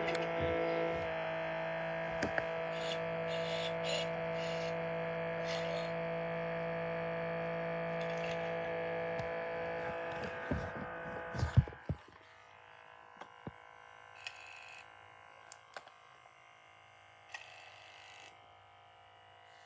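Battery-powered animated hula-hoop Santa figure running on low batteries, giving a steady drone with several fixed tones above it. About twelve seconds in it stops amid a few knocks of handling, and only faint clicks follow.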